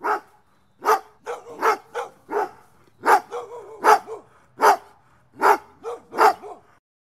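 Guard dog barking in a rapid, irregular string of sharp barks, some in quick pairs, about two a second, stopping near the end.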